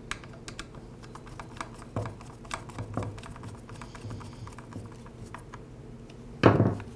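A Phillips screwdriver turning a small screw into a trimmer carburetor, making light, irregular clicks and scrapes of metal on metal as the screw is tightened. There is one louder knock near the end.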